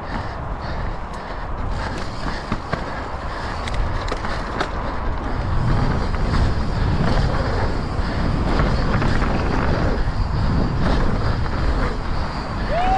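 Mountain bike rolling fast down a rough trail: tyre and wind noise with scattered knocks and rattles over bumps, getting louder about halfway through.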